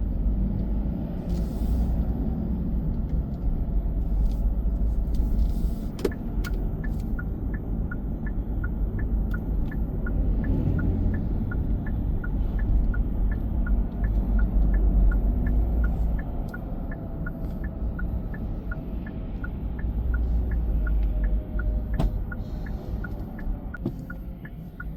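Steady low road and engine rumble inside a moving car's cabin. About six seconds in there is a click, then the indicator ticks evenly, about two ticks a second.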